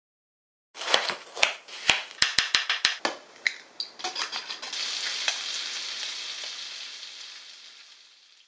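Sharp clicks of a utensil beating against a glass mixing bowl, with a fast run of strokes, then a steady sizzle of bacon frying in a pan that slowly fades out near the end.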